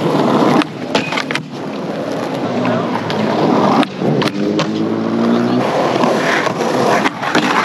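Skateboard wheels rolling over concrete, then a sharp clack as the board pops up onto a metal handrail, followed by a ringing metallic grind along the rail for about a second and a half. More clacks of the board come near the end.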